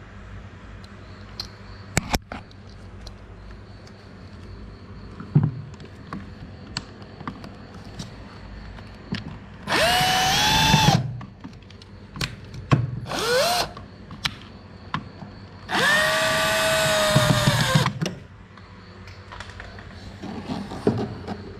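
10.8 V cordless drill/driver driving screws into a plastic air-conditioner evaporator housing. It runs three times, each time spinning up to a steady whine and stopping; the middle run is short and the last lasts about two seconds. Light clicks and knocks from handling the parts come in between.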